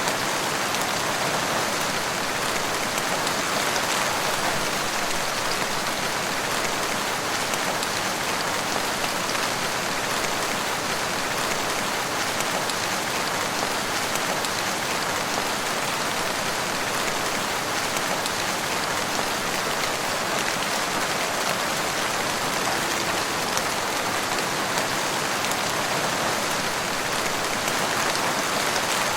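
Steady rainfall in a forest, a dense even hiss of drops with fine scattered patters and no let-up.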